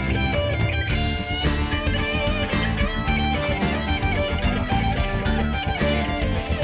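Guitar-led rock music with electric guitar, bass and a steady drum beat.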